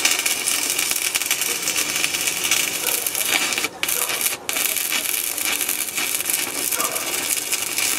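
Stick-welding arc from a thin 2 mm Paton electrode, crackling and sizzling steadily as a bead is laid; the arc breaks off twice for a moment about halfway through.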